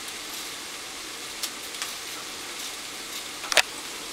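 Butter, olive oil and onion frying in a pan, a steady soft sizzle, with a few short sharp clicks of kitchen utensils on a plastic cutting board. The loudest click comes about three and a half seconds in.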